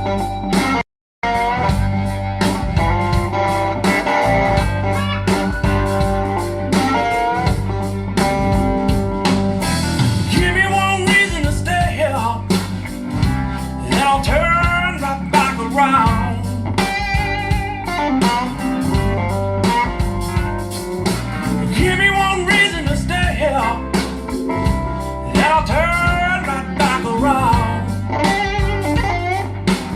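Recorded band music with a steady bass underneath and a wavering lead melody on top; the sound cuts out completely for a moment about a second in.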